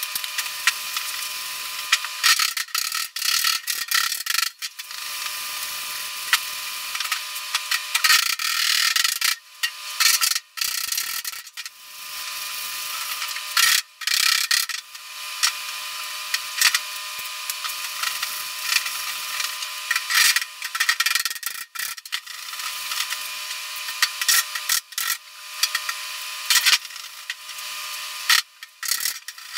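Metalworking on the steel outer skin of a 1963 Chevrolet C10 door: a long sanding block rasps steadily across the panel, broken by frequent sharp taps of a body hammer on a dolly. The work is smoothing out the waves left in a newly welded bottom patch panel.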